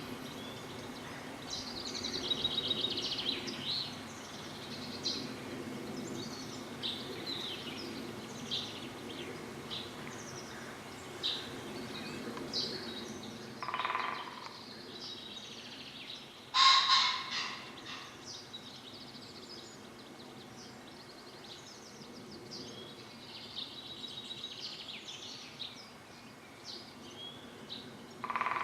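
Birdsong: many small birds chirping and trilling in quick succession over a faint steady low hum. A few louder calls stand out, two near the middle and one at the very end.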